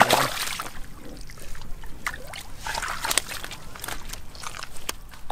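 Hands groping and digging in wet mud and shallow muddy water: irregular squelches and sloshes, loudest at the start.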